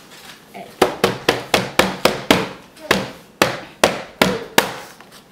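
A child's hand banging rapidly on a cardboard advent calendar box: about a dozen sharp knocks in under four seconds, starting nearly a second in, with a short break in the middle.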